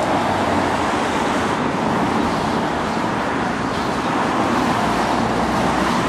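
Steady street traffic noise: running vehicle engines and tyre noise, with no siren.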